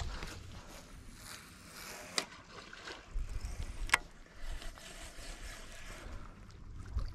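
Light wind rumbling on the microphone at the start and near the end, with faint outdoor ambience in between. Two sharp clicks are heard, a little over two seconds in and about four seconds in.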